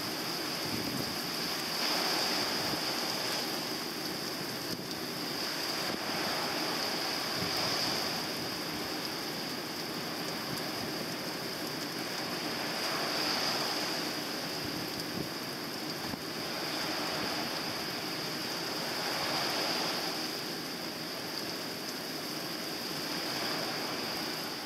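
Surf breaking on a sandy beach, the wash swelling every five or six seconds, under a steady hiss of rain.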